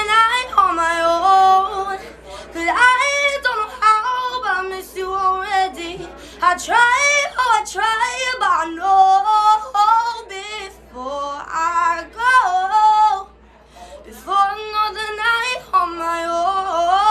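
A young woman singing solo without accompaniment, in phrases with wavering held notes and short breaks between them, with a longer pause about three-quarters of the way through.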